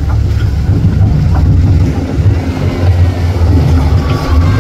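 Fishing boat's engine running under way, a loud, steady low rumble, with wind buffeting the microphone.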